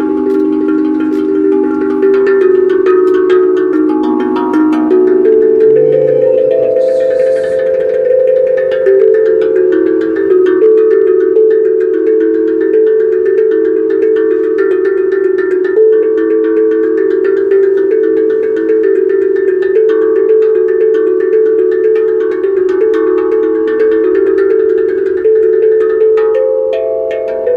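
A tuned percussion instrument played in a quick, continuous melodic pattern, its struck notes ringing and overlapping.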